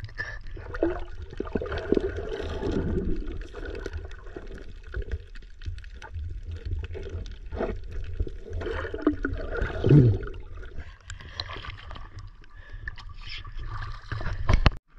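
Sea water sloshing and gurgling over a steady low rumble, with scattered knocks. A sharp knock comes near the end, then the sound drops away.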